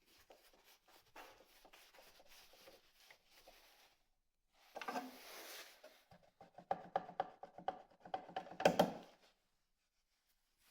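Handling noises: faint rubbing and scraping, then a louder scrape about five seconds in and a run of clicks and knocks, the loudest near the end.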